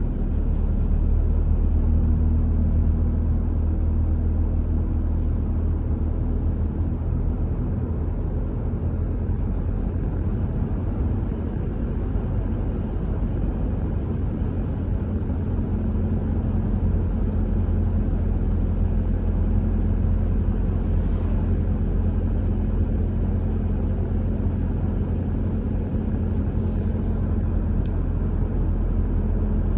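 A car driving at steady speed: a constant low rumble of tyre and engine noise with a faint steady hum.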